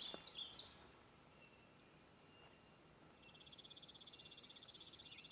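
Quiet outdoor ambience with a few faint chirps at the start. About three seconds in, a high, rapid, evenly pulsed trill begins and slowly grows louder.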